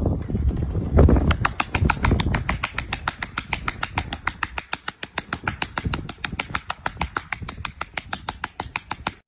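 A seal patting its belly with a front flipper, a fast, even run of sharp slaps starting about a second in. Before it come a few low, rumbling thumps.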